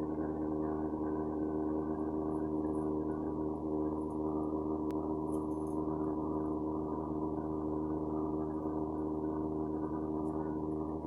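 A steady, unbroken drone made of many held low tones stacked together, with no change in pitch or loudness: an unidentified mechanical or industrial-sounding hum.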